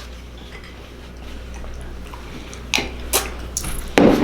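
Knife or spoon knocking and scraping against a mayonnaise jar and plate while spreading mayo on a burger: quiet handling at first, then a few sharp clicks and knocks in the last second and a half, the loudest about four seconds in.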